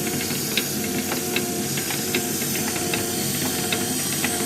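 Inner drive of a continuous band bag sealer running: a steady hiss of its cooling fan over the hum of the geared motor, with sharp regular clicks from the gear train a little more than once a second.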